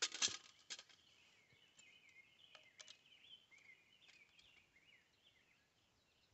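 A few sharp clicks and knocks in the first second as a tripod-mounted spotting scope is handled and swung into position, then faint bird chirps over quiet outdoor background that fade to near silence.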